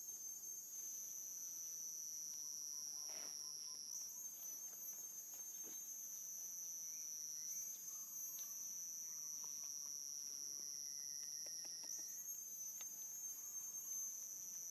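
A steady, high-pitched insect chorus drones throughout, shifting slightly in pitch every few seconds, with a few faint clicks over it.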